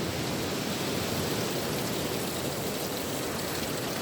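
Steady rushing of running water, an even hiss without surges.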